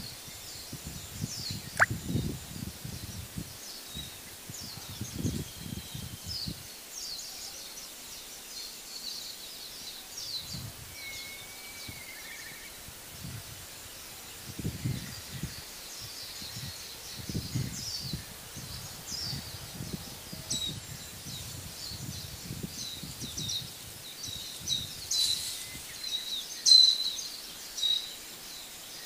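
Small birds chirping in quick, high notes, thickest near the end, with one lower whistled call a little before halfway. Low rumbles come and go on the microphone.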